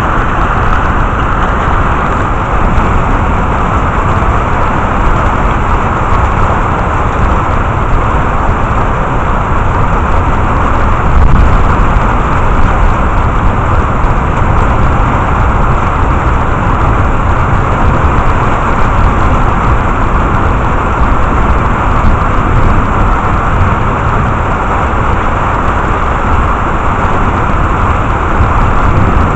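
Steady, loud rain of a thunderstorm, with a brief louder low swell about eleven seconds in.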